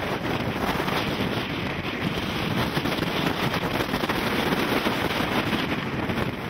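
Strong storm wind buffeting the microphone: a loud, steady, rough rush of wind noise.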